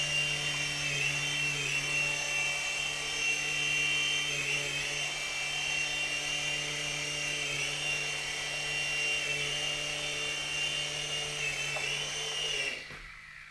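Electric motors and rotors of a DFD Firewolf F103 mini RC helicopter whining steadily in flight, the pitch dipping briefly every couple of seconds with throttle changes. The whine cuts off suddenly near the end as the motors stop.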